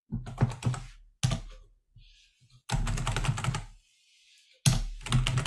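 Typing on a computer keyboard, in about four short runs of rapid keystrokes with brief pauses between.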